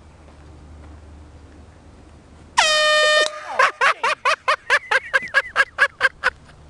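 Handheld air horn sounded as a prank. About two and a half seconds in it gives one sudden, steady blast of under a second, then a rapid run of about fifteen short toots, some five a second.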